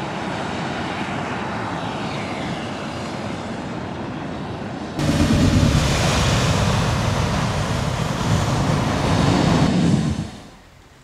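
Large gas flame jets roaring steadily. The roar jumps sharply louder about halfway through and cuts off shortly before the end.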